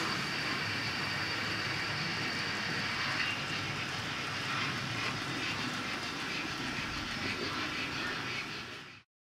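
Model trains running on a layout: a steady whir and rattle of small electric locomotive motors and wheels on the track. The sound fades out shortly before the end.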